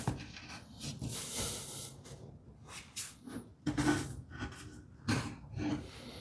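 Faint, scattered workshop handling sounds during a panel glue-up: a sharp click at the start, soft rubbing about a second in, and light knocks and scrapes near the middle and end as glued boards and clamps are moved into place.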